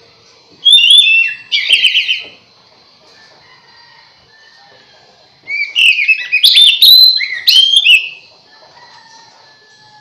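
Oriental magpie-robin (kacer) singing two loud bursts of quick, varied whistled notes, the first about half a second in and the second about five and a half seconds in, each lasting two to three seconds. This is the kind of song used as a lure (pikat) to draw other magpie-robins.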